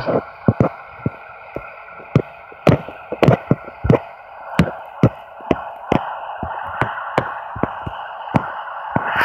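Model diesel locomotive in BNSF livery running along the layout track: a steady drone with irregular sharp clicks and clacks, two or three a second.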